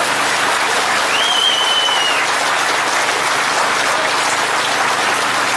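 Large open-air crowd applauding steadily. About a second in, one high whistle-like tone is held for about a second above the clapping.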